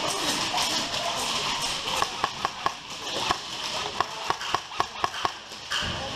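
Airsoft electric rifle firing single shots in quick succession: about a dozen sharp snaps in short strings, starting about two seconds in and stopping just over five seconds in, laid down as suppressing fire.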